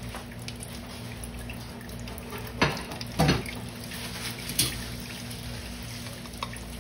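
A few short, light knocks of kitchenware being handled, about two and a half, three and four and a half seconds in, over a steady low hum.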